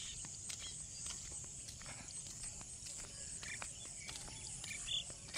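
Footsteps on a paved road, a soft tap two to three times a second, under a steady high insect hum with a few short high chirps.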